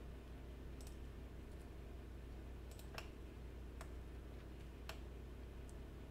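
Faint, sparse clicks of a computer mouse and keyboard keys, about one a second, over a steady low hum.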